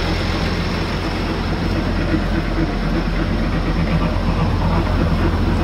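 A big Ford tractor's diesel engine running steadily at gentle revs, turning a grass topper through the PTO.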